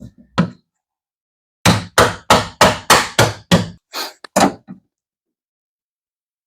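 A hammer striking a punch-out (knockout) in a steel breaker panel to knock it free: two light taps, then about nine sharp blows about three a second, the last few weaker.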